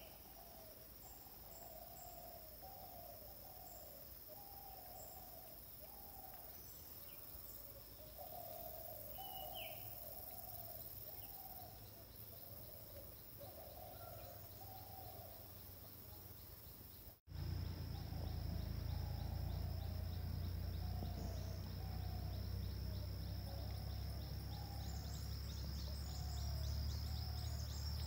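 Open-air plantation ambience: a bird gives a long run of short, repeated hooting calls, over a steady high insect drone and a few higher chirps. About two-thirds through, the sound drops out for an instant, and afterwards a low rumble and a fast pulsing insect buzz join the calls.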